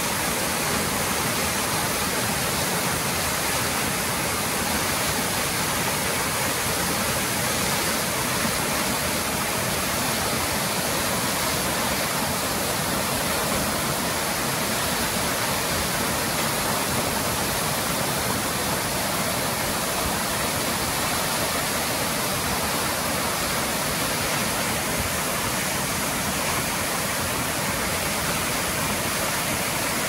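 Steady rushing of a waterfall: an even, unbroken wash of falling water.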